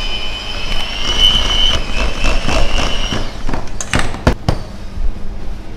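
Electric hand mixer running at speed, its wire beaters whipping softened butter with cinnamon and maple syrup in a stainless steel bowl, with a steady high whine. The motor stops about three seconds in, followed by a few sharp knocks.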